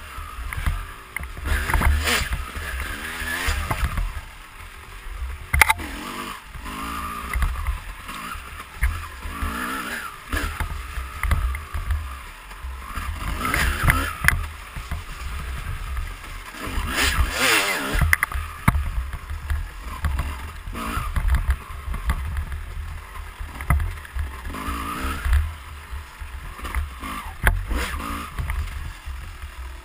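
2004 Kawasaki KX250 250cc single-cylinder two-stroke dirt bike engine revving up and down again and again while being ridden, heard through a helmet-mounted camera. Heavy wind rumble on the microphone and scattered knocks from the bike hitting bumps are mixed in.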